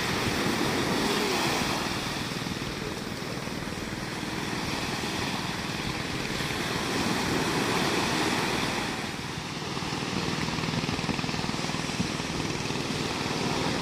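Surf breaking and washing up a sandy beach, a steady rush that swells louder about a second in and again around seven to eight seconds, then eases.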